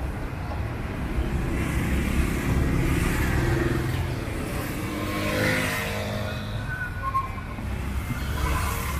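A motor vehicle's engine running as it passes close by, its note falling about halfway through, over a steady low traffic rumble.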